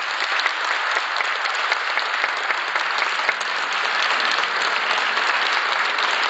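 Audience applauding steadily: a room full of clapping hands.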